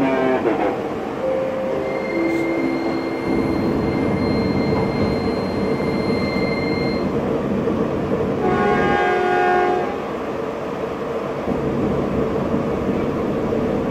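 Electric commuter train running, heard from inside the carriage: a steady hum and rumble, with a few held low tones about a second in, a thin high whine for about five seconds, and a train horn sounding for just over a second midway through.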